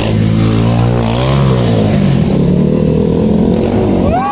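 Stunt motorcycle engine running loud and revving, its pitch climbing and dropping back about a second in, then running on.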